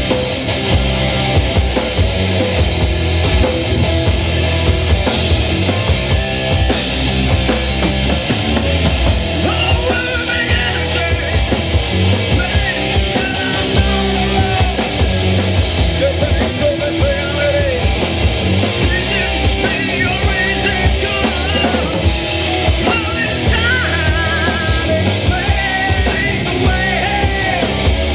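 Rock band playing live: electric guitars over a steady drum beat, with a wavering lead melody line on top in the second half.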